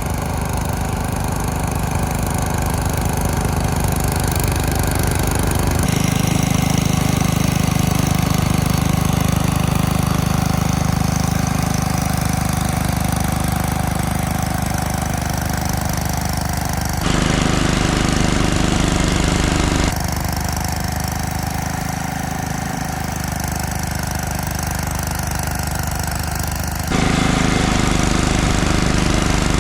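Snowblower engine running steadily under load, heard in several back-to-back cuts that change abruptly in tone and loudness.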